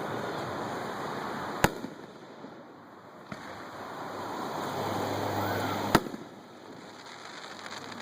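Display fireworks: a rushing noise swells and ends in a sharp bang of an aerial shell bursting. This happens twice, about four seconds apart.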